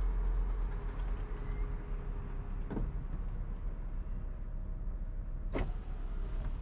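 Volvo C70 retractable hardtop finishing its lowering cycle: the roof mechanism runs with a steady hum as the boot lid closes over the stowed roof. Two sharp clicks come about three and five and a half seconds in.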